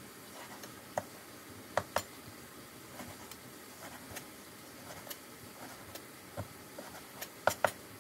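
Sparse light clicks and taps of kitchen utensils and dishes during food preparation, a handful of short sharp knocks over a faint hiss, the loudest a quick pair near the end.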